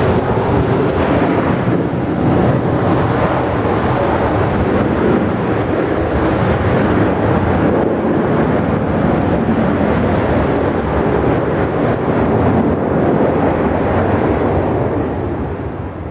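Jet airliner's engine noise, loud and steady, fading over the last two seconds.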